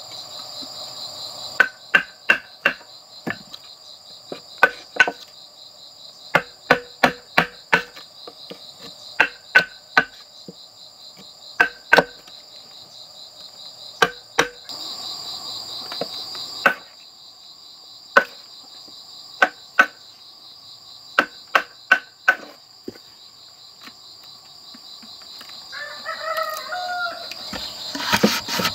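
Chisel being hammered into a bamboo pole to cut a hole: sharp strikes in quick runs of two to five, which stop a little over two-thirds of the way through. Insects buzz steadily throughout, and a rooster crows once near the end.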